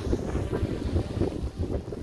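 Strong wind buffeting the microphone: an uneven, gusty low rumble.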